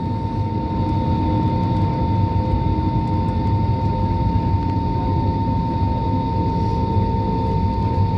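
Jet airliner engines running: a steady low rumble with a thin, steady high whine over it.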